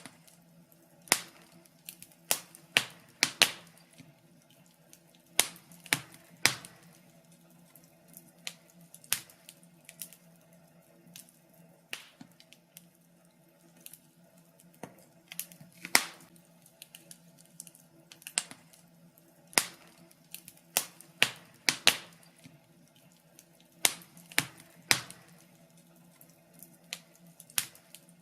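Wood fire crackling in a fireplace: irregular sharp pops and snaps, sometimes several in quick succession, over a faint steady hum.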